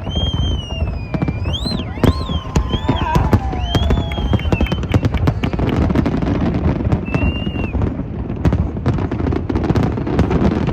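Fireworks going off in a rapid string of sharp bangs and crackles, with high whistles gliding up and down in pitch during the first few seconds.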